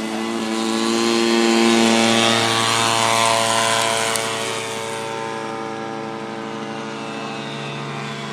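Brushless electric motor (Scorpion SII-3020, 1110kv on 4S) spinning an 8x8 APC pusher propeller on a foam model L-39 jet in flight, a steady droning whine. It is loudest about two seconds in as the plane passes, then fades as it flies away.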